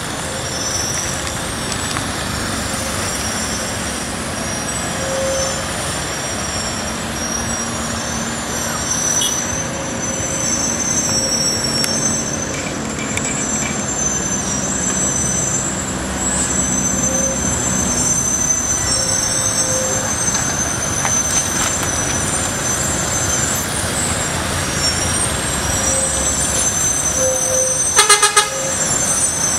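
Heavy truck's diesel engine running slowly, with passing cars and road noise. A horn gives a short toot near the end.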